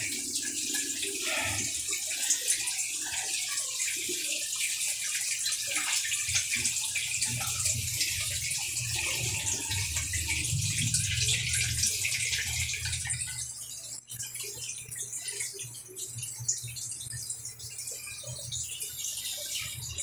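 Whirlpool LSP780GP top-load washing machine draining its tub on the spin-dry cycle: a steady rush of water with a low hum under it, easing off about two-thirds of the way through. It now drains freely with its replacement controller board.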